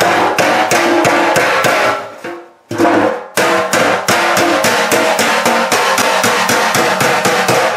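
Hammer rapidly striking the steel top of a fuel tank around a freshly cut pump hole, about five or six even blows a second with a ringing metallic note that changes pitch as the blows move around, and a short pause about a third of the way in. It is flattening the sheet metal that the reciprocating saw warped, so the fuel pump can seat flat.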